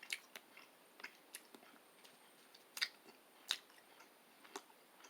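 Faint mouth sounds of a person chewing soft black licorice: a few irregular short clicks, the loudest near the middle.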